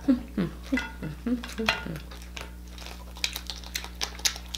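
A few short hums from the eater in the first two seconds, then small wet crackles and clicks of a cooked shrimp being peeled by hand.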